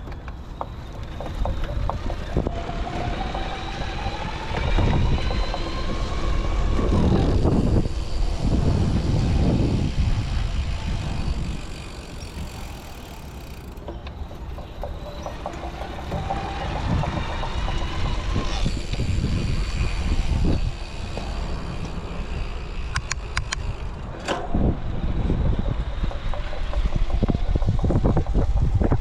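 Fazua Drive 60 e-bike mid-drive motor whining under assist while riding, its tone rising twice over several seconds as the bike speeds up, over a steady rumble of wind and road noise. A few sharp clicks or rattles come about three quarters of the way through.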